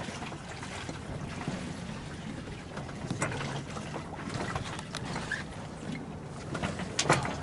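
Water rushing and splashing along a sailboat's hull as it moves under way, with wind on the microphone and a low steady hum underneath. A sharper splash or knock comes about seven seconds in.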